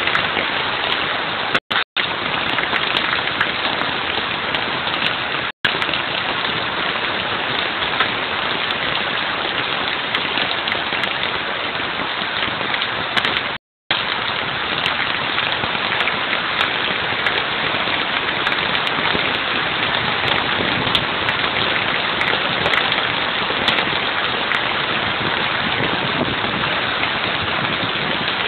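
Heavy rain pouring down in a steady, dense rush from a severe storm. The sound drops out completely for brief moments a few times, about two seconds in, again near six seconds, and for a little longer about halfway through.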